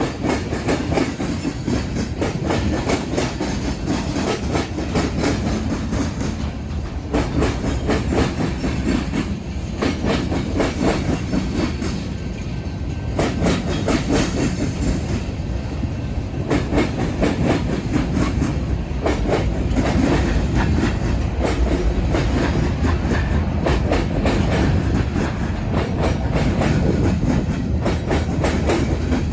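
BNSF freight train's cars rolling over a railroad diamond crossing, the wheels clattering over the crossing's gaps in a dense, continuous run of clicks over a steady rumble.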